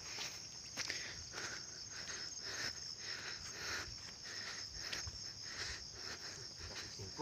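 A steady, high-pitched chorus of insects, with soft footsteps on a dirt trail about twice a second.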